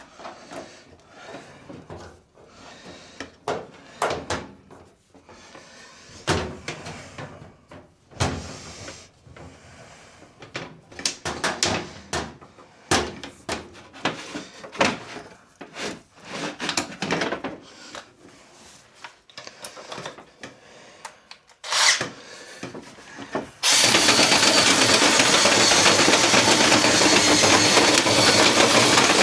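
Clicks and knocks of vent-brush extension rods being handled and joined, then about three-quarters of the way in a power drill starts abruptly and runs steadily and loudly, spinning the brush up inside the dryer vent duct.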